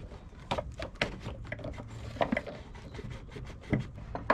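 Silicone hose being worked by hand onto an oil catch tank's hose fitting: scattered rubbing and small knocks, with a louder knock near the end.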